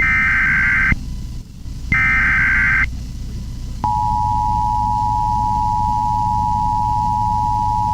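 Emergency Alert System broadcast tones. Two roughly one-second bursts of the SAME digital header's warbling data tones come about a second apart. About four seconds in, the steady two-tone EAS attention signal starts; it announces a law enforcement warning.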